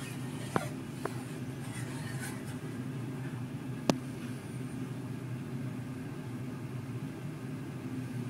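A ceramic mug clinking on a metal cup platform as it is turned by hand: two light knocks in the first second, then a sharper clink about four seconds in. A steady low hum underlies it.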